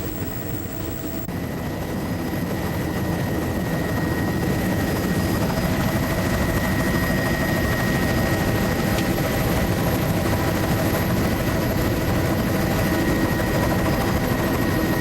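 Steady drone of a low-flying survey aircraft in cruise, engine and rotor or propeller noise heard from inside the cabin, with a thin steady whine running through it; it swells slightly over the first few seconds, then holds even.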